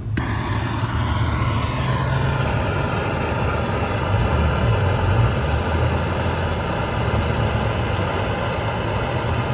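A small handheld soldering torch burning with a steady hiss, over a low hum.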